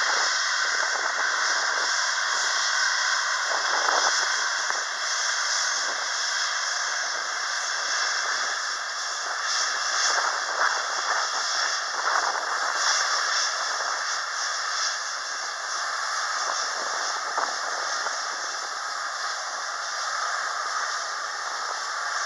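Boeing 737-800's CFM56 jet engines at taxi power, a steady hiss without a deep rumble.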